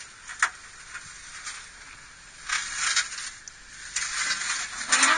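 Hummer H2's tyres crunching over loose rock and gravel as it crawls down a rocky gully, with sharp clicks of stones knocking and popping under the tread. The crunching comes in a few short bursts, the loudest near the end.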